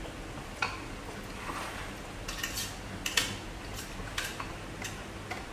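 Cutlery clinking against dishes during a meal: a series of about eight sharp, irregular clinks. The loudest comes about three seconds in.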